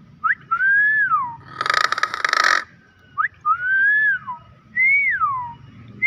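Hill myna giving loud clear whistles: quick upward chips and longer whistles that rise and then drop. A harsh, second-long rasping burst comes about two seconds in.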